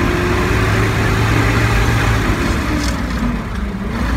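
Large truck's engine running, heard from inside the cab; about two and a half seconds in the revs fall away as the driver works the gear lever, then the engine picks up again near the end.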